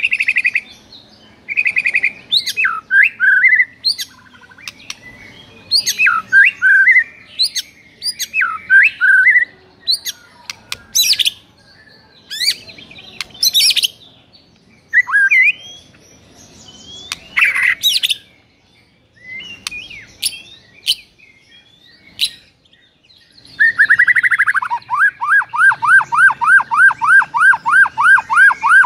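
White-rumped shama singing: a run of loud, varied whistled and chattering phrases broken by short pauses, then, about two-thirds through, a fast even series of repeated notes at about five a second. It is the bird's aggressive fighting song ('narung'), drawn out by a played master recording.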